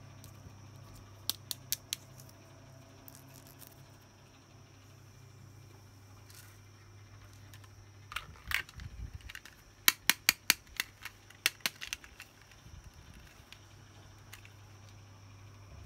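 Small plastic pieces of a toy makeup playset being handled: four sharp clicks about a second in, then a quick run of about ten sharp clicks and taps around the middle, over a low steady hum.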